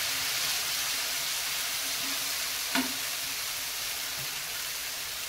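Ragi dosa batter sizzling steadily on a hot, oiled nonstick tawa. There is one short tap a little under three seconds in.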